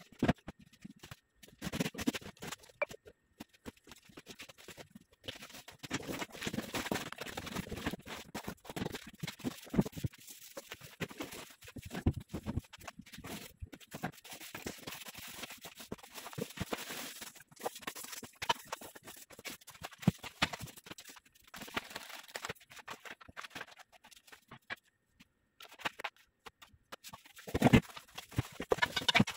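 Unpacking a flat-packed bed: cardboard and plastic-wrapped frame parts being handled, giving irregular rustling and scraping with scattered knocks, and a louder burst near the end.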